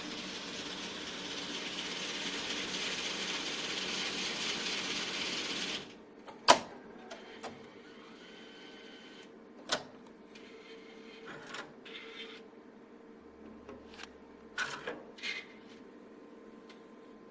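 ATM cash dispenser mechanism whirring steadily for about six seconds with a faint high whine, then stopping abruptly. Sharp clicks and clunks follow, the loudest shortly after it stops.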